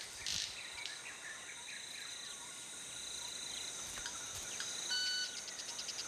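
Rainforest ambience: insects buzzing steadily at a high pitch, with a few short bird chirps early on and a brief whistle followed by a fast run of clicks near the end.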